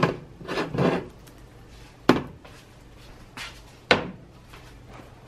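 Food cans and a glass jar set down one after another on a glass cooktop: several sharp knocks, the loudest right at the start, then one about two seconds in and another just before four seconds.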